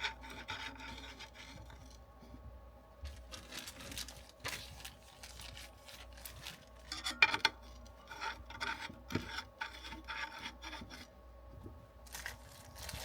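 Rail sections of a headset stand being twisted into place by hand: irregular rubbing and scraping, with a few sharper clicks, the loudest about seven seconds in.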